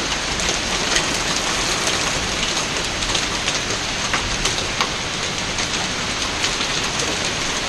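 Heavy rainstorm pouring steadily, with many short sharp ticks of drops striking hard surfaces.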